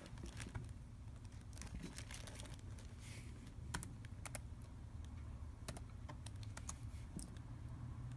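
Typing on a computer keyboard: light, irregular key clicks over a faint low hum.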